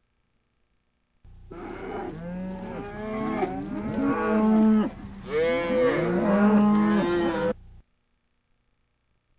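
Several cows mooing at once, their calls overlapping in two long bouts. The sound starts abruptly about a second in and cuts off suddenly near the end.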